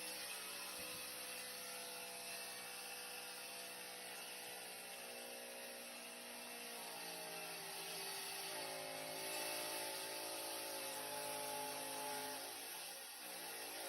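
A power tool's electric motor running with a steady whine, its pitch shifting up and down a few times as the load or speed changes.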